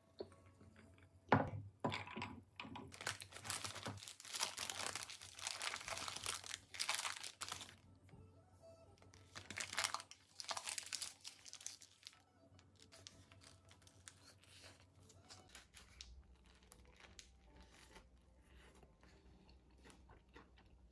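Paper burger wrapper being torn open and unfolded, crinkling and rustling in repeated bursts for about ten seconds, then only a few faint rustles.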